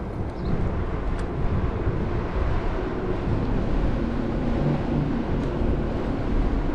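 Wind rushing and buffeting over the microphone, with road rumble, while riding a Varla Eagle One electric scooter at speed.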